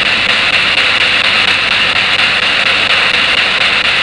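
Spirit box scanning through radio frequencies: loud, steady radio static hiss.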